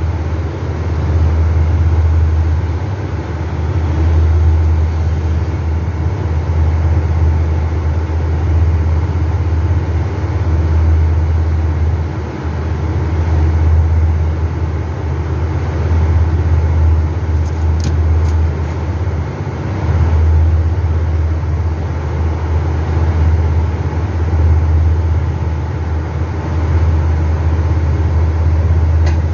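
Carrier 30GT air-cooled chiller running: a steady, deep machine hum over a fan-like rush, swelling and easing every few seconds.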